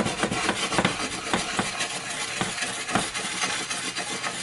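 Butter sizzling in a nonstick skillet as seasoned bread slices toast in it. Irregular clicks and scrapes come through the hiss as the slices are shifted around in the pan.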